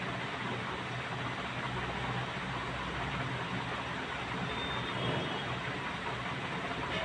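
Steady background noise: an even hiss with a low hum underneath, and a brief faint high tone about halfway through.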